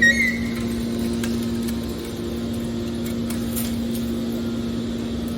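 Hydraulic scrap metal baler's power unit running with a steady, even hum, with a short high-pitched squeal right at the start.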